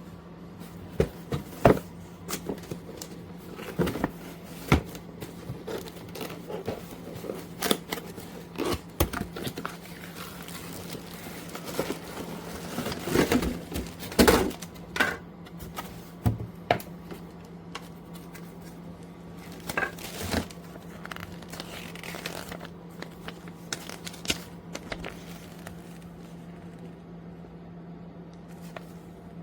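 Irregular clicks, knocks and crinkling of objects being handled, heaviest in two spells near the start and midway, over a steady low hum.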